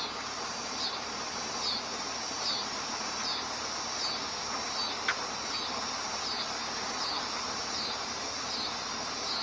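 Insects chirping in an even pulse a little faster than once a second, over a steady hiss. A single sharp click comes about five seconds in.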